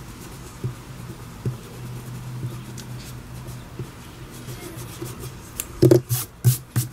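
Pencil eraser rubbing over paper: faint scrubbing, then four short sharp strokes about a third of a second apart near the end.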